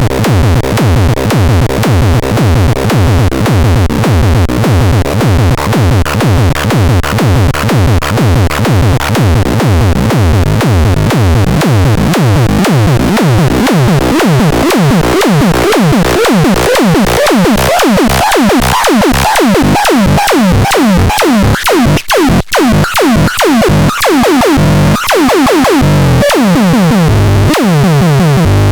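Loud electronic music: synthesizer parts over a fast, steady beat, with a short break about two-thirds of the way through.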